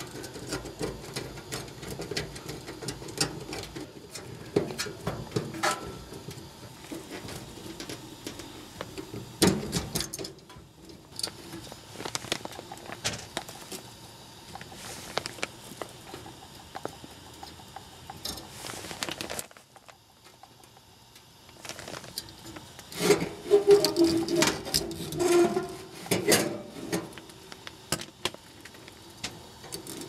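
Screwdriver backing out the mounting screws of a furnace fan and limit control switch: irregular small metal clicks, scrapes and handling noise, briefly near quiet about two-thirds in, then a busier stretch of clatter and squeaks.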